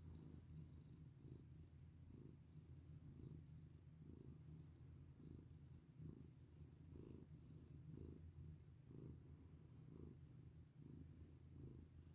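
Domestic cat purring softly and steadily while being stroked, the purr swelling with each breath a little more than once a second.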